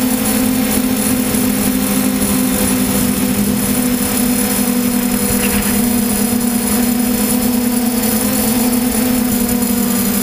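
DJI F550 hexacopter's six electric motors and propellers humming steadily in flight, heard close up from the camera carried on the craft, with a constant hiss over the drone of the props.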